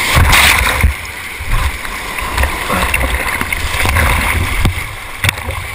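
Whitewater rapids rushing and splashing against the bow of an inflatable kayak, heard from a camera at water level with low buffeting on the microphone. A louder wash of water over the camera comes in the first second, then the rushing goes on steadily.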